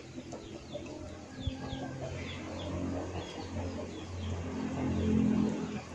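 Domestic chickens clucking, with many short falling chirps repeating over a steady low sound that grows louder about five seconds in.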